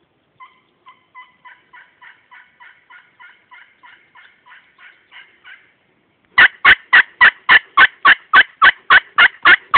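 Turkey yelps, about three a second. First comes a faint run of about eighteen. About six seconds in, a much louder, close run of about a dozen starts, from a hunter's hand-held turkey call.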